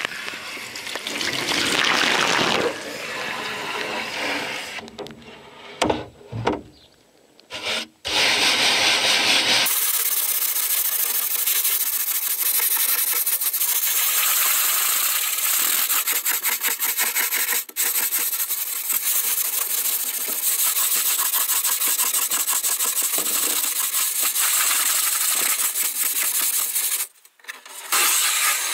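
Garden hose spray nozzle splashing water onto a van's metal roof for the first few seconds, then a few knocks. From about ten seconds in, wire wool scrubs the wet roof in rapid, steady strokes, rubbing off rough paint overspray.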